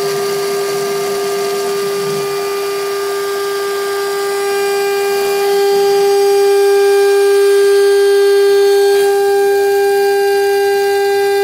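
CNC router spindle milling acrylic sheet, running with a steady high-pitched whine that holds one pitch and gets a little louder about halfway through.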